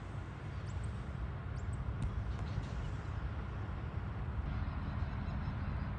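TasRail TR-class diesel locomotive rumbling low and steadily as it approaches, growing gradually louder.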